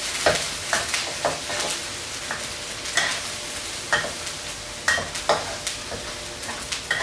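Chilli and onion spice paste for rendang frying in oil, with a steady sizzle. It is being stirred, and the utensil scrapes and knocks against the pan about once a second.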